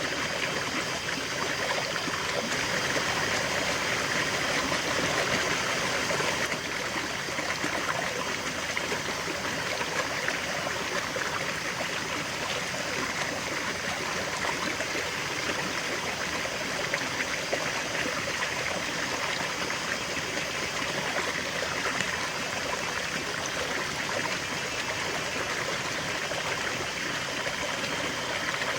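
River water flowing steadily, an even wash of water noise that dips slightly in level about six and a half seconds in.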